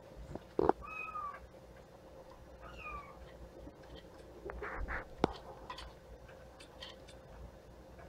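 Kittens meowing: two short, high meows about one and three seconds in, the second falling in pitch, amid knocks and taps from their play. A sharp knock just under a second in is the loudest sound.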